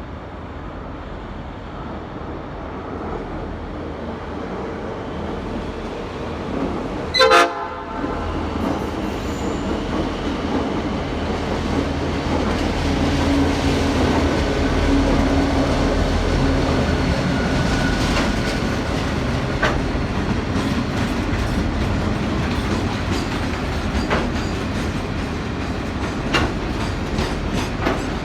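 VL class diesel freight locomotives approaching and passing, with one short, loud blast of a Nathan P5 air horn about seven seconds in. The locomotives' engine drone builds after the blast, then the wagons roll by with wheels clicking over the rail joints.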